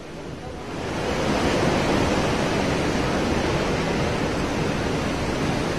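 Strong cyclone wind rushing through trees and palm fronds, a steady noise that grows louder about a second in.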